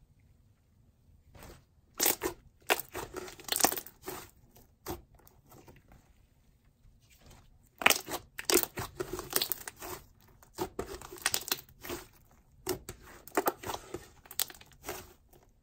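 Lychee slush slime, a jelly–icy hybrid, being squished, pressed and stretched by hand, giving irregular crackling squelches and small pops. The sounds are sparse near the start and again around the middle, and come thick and fast over the second half.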